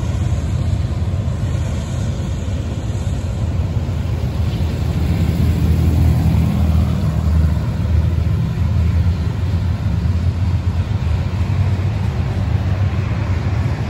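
Steady low rumble of road traffic driving close by, mixed with a Union Pacific freight train and its diesel locomotives rolling past.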